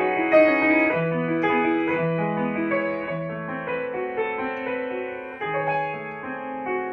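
Upright piano played with both hands: a slow melody over held chords, each note ringing on and fading, growing gradually softer toward the end.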